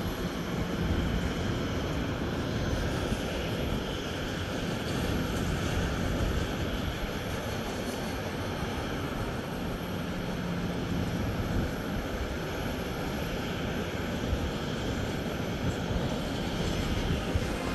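Steady rumble and hiss of jet aircraft noise.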